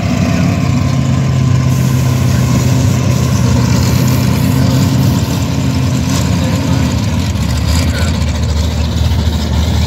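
Dodge Dart Swinger drag car's engine idling steadily at the starting line, its note dropping a little about six seconds in.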